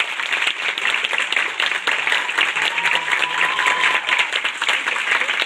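Theatre audience applauding, a dense steady clapping, with one long held shout from the crowd about halfway through.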